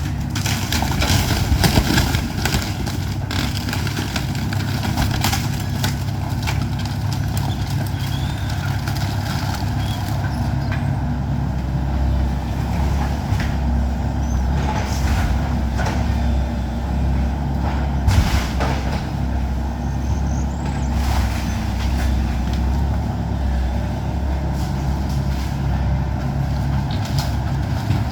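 Excavator's diesel engine running steadily as it demolishes a house, with occasional sharp knocks and cracks as the structure is broken up.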